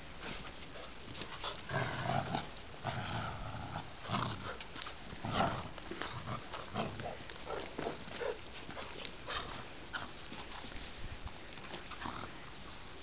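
Two puppies playing tug-of-war with a rag, growling in irregular bursts, with scuffling and tugging noises between.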